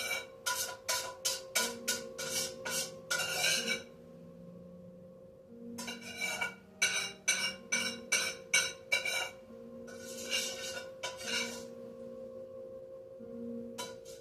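Poker chips clicking and clinking in two quick runs of sharp strikes, each with a short rattling burst, over faint steady background music.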